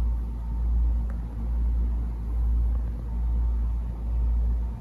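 A steady low rumble that swells and fades about once a second.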